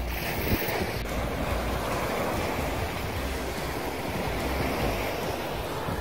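Small sea waves breaking and washing up on a sandy beach, with wind buffeting the microphone in a low rumble.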